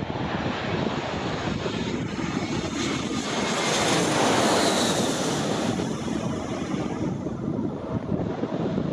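Jet airliner on landing approach passing low overhead: engine noise swelling to a peak about halfway through, with a faint high whine near the peak, then fading away.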